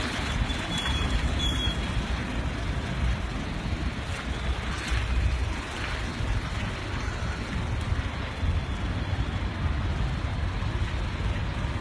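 Steady outdoor background rumble, strongest in the low end and fluttering unevenly, with no distinct events.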